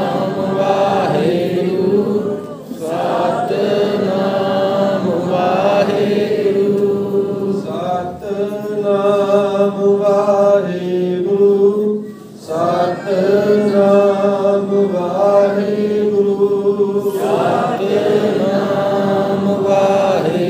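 Sikh devotional hymn singing (gurbani kirtan) in long sung phrases over a steady low drone, with short breaks between phrases.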